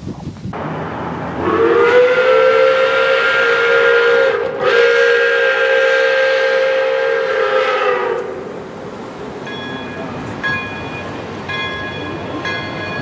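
Pere Marquette 1225 Berkshire steam locomotive's whistle blowing one long blast, sliding up in pitch as it opens and dipping briefly midway before it shuts off. A bell then rings about once a second.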